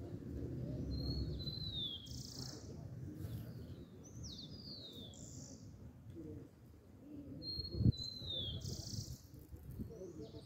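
A songbird sings a short phrase twice, a flat high note followed by downward-sliding whistles and a brief buzzy note, over a low background rumble. A single sharp thump sounds about three-quarters of the way through and is the loudest sound.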